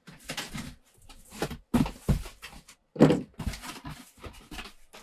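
Packing tape being ripped off a cardboard box and the flaps pulled open: a run of rough tearing and scraping sounds, the loudest about two and three seconds in.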